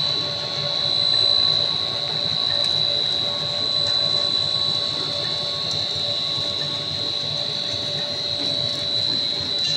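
A snack food extruder line running: a steady mechanical drone with a constant high-pitched whine over it.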